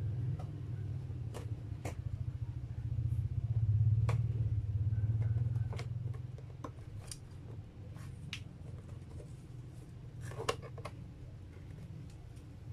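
Cardboard cake box being handled and opened, its flaps and folds giving a series of short, sharp clicks and snaps. A steady low hum runs underneath, swelling for a few seconds in the first half.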